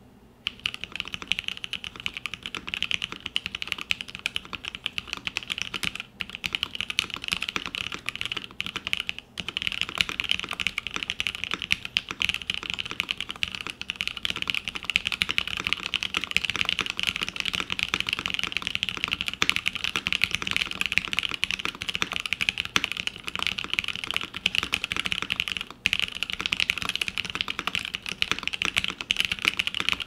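Continuous typing on a Smith+Rune Iron165 SE 65% keyboard built with a flexible PETG plate, bottom gaskets only and no sound dampening, fitted with Milky Top H1 linear switches lubed with 205g0 and GMK keycaps. The keystrokes come in a dense, steady stream that starts just after the opening, with a few brief pauses.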